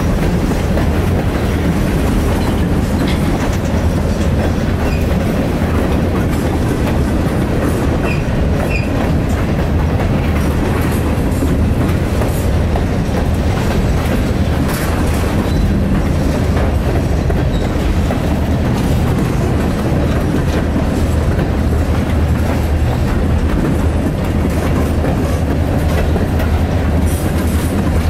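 Freight cars, covered hoppers and gondolas, rolling slowly past close by: a steady rumble with wheel clatter over the rail joints.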